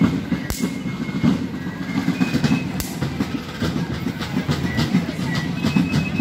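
Fife and drum corps playing down the street: rapid snare-drum rattling under faint, thin fife notes, with a couple of sharp knocks.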